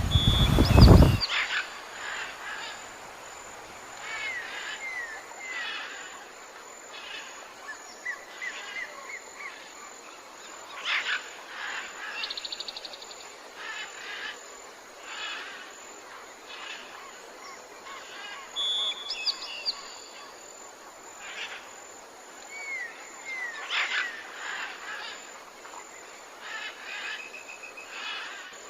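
Several birds calling: repeated chirps, short rapid trills and downslurred whistles, on and off. A loud rush of noise cuts off about a second in.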